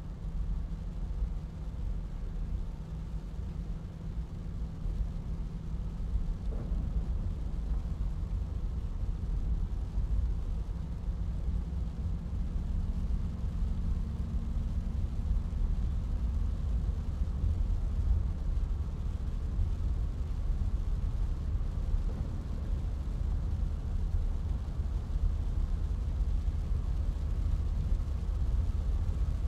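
Inside a car driving in the rain: a steady, deep road and engine rumble in the cabin, with a faint engine hum shifting slightly in pitch partway through.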